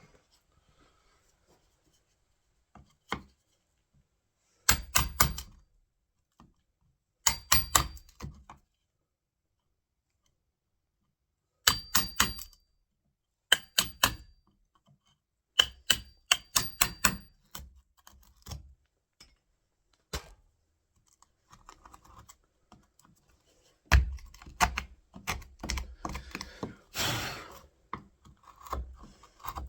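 Hammer tapping a wood chisel in short runs of quick, sharp strikes with a light metallic ring, widening the latch recess in a door edge. A brief scrape of the chisel in the wood near the end.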